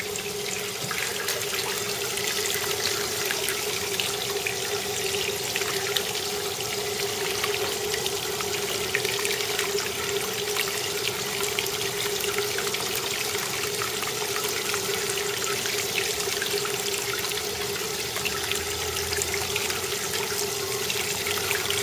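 Tap water running steadily into a plastic tub of water and splashing as a cyanotype print is rinsed in it, washing out the unused emulsion. A steady hum runs underneath.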